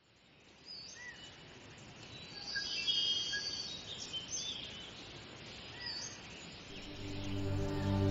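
Birds chirping with short scattered calls over an outdoor background hiss that fades in from silence. Soft sustained music swells in near the end.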